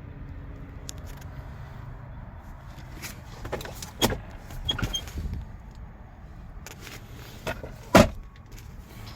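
A handful of sharp clicks and knocks from parts of a car's interior being handled: a cluster of them in the middle and a loud knock near the end. Under them runs a steady low rumble.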